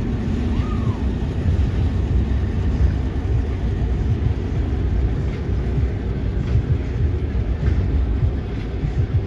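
Train rolling past: a steady low rumble with a few faint clicks.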